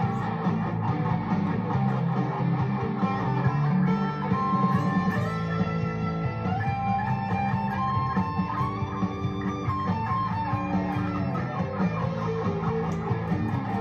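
Fender Player Series Stratocaster electric guitar being played: picked melodic lead lines over a full low end, with several held notes through the middle that bend in pitch.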